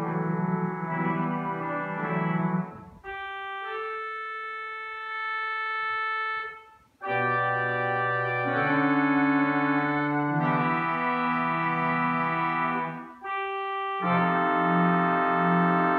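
Pipe organ playing sustained chords broken by short pauses: a softer, thinner passage of high held notes a few seconds in, then fuller, louder chords with a low bass line.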